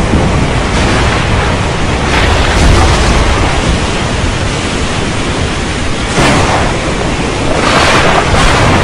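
Stormy-weather sound effect: a loud, steady rush of heavy rain and wind that swells louder about two, six and eight seconds in.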